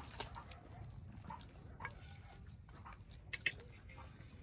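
Quiet eating at a table: faint chewing and a few small clicks and taps of hands and dishes, the sharpest about three and a half seconds in.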